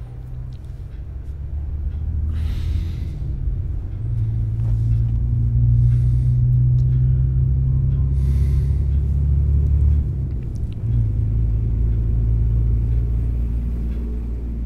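A loud, low rumbling drone from the film's sound design swells for several seconds, shifts about ten seconds in, then slowly eases. A few faint hissing rushes sit over it.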